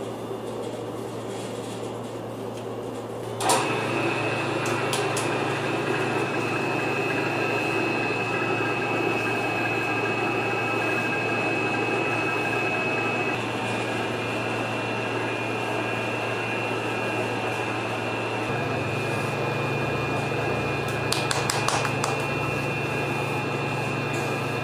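Commercial dough mixer switching on with a click about three and a half seconds in, then running steadily with a motor hum and a high whine as its arm churns flour into lavash dough. Before it starts there is a lower steady hum, and a few light clicks come near the end.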